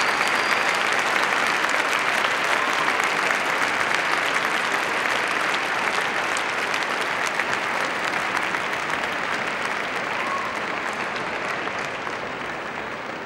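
A large arena audience applauding steadily. The clapping slowly dies away over the last several seconds.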